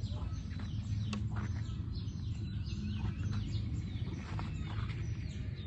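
Small birds chirping, many short calls falling in pitch, over a steady low hum.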